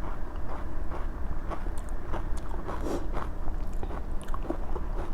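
Close-up chewing of panipuri, the crisp puri shells crunching in irregular small clicks and crackles.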